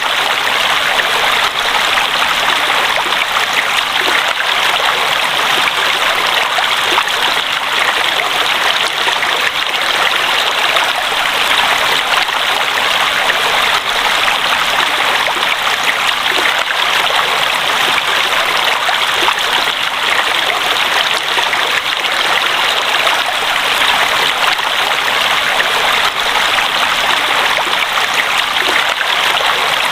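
Running water, a steady, even rush with no breaks or distinct splashes.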